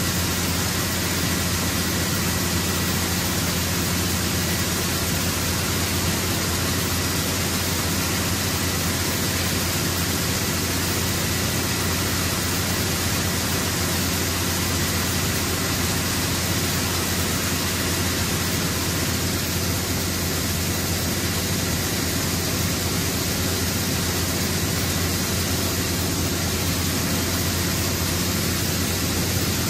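Grain auger running steadily as shelled corn flows from a gravity wagon into its hopper: an even rushing noise over a constant low hum.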